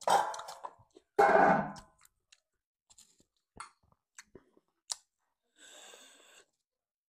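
Close-up eating sounds of people eating rice and beef curry by hand: chewing with small wet mouth clicks and smacks. There are two louder bursts in the first two seconds and a short soft noisy sound about six seconds in.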